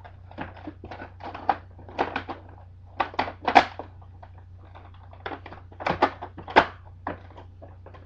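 Irregular plastic clicks, knocks and snaps as the nozzle parts of a Hoover Dimension II upright vacuum are fitted back on and pressed into place. The loudest snaps come about three and a half and six and a half seconds in.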